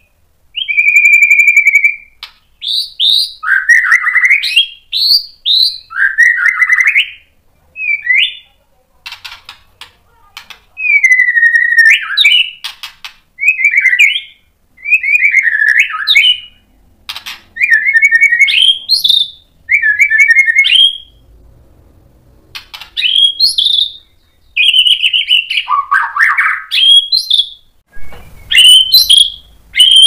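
White-rumped shama singing: a varied string of loud whistled phrases, many sliding up or down in pitch, each about a second long and separated by short pauses, with runs of quick clicks between some phrases.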